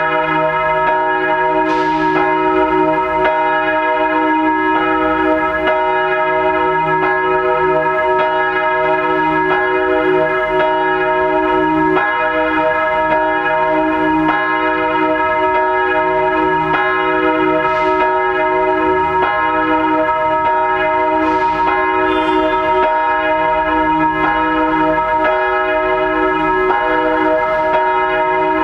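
A single large bronze church bell, the 1,543 kg Rincker-cast Reformationsglocke tuned to E-flat, swinging and ringing with evenly spaced clapper strokes. A long, steady hum carries between the strokes. This is the Vorläuten, the pre-service ringing that calls to the Sunday service an hour or half an hour ahead.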